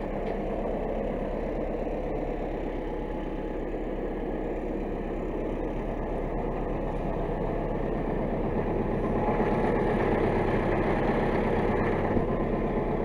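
DT-75 crawler tractor's diesel engine running steadily, getting louder from about two-thirds of the way in, then easing off near the end.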